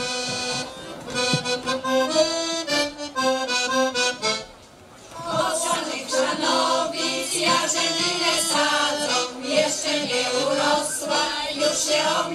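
Piano accordion playing a folk tune. It breaks off briefly about four and a half seconds in, then plays on, and women's voices sing along with it near the end.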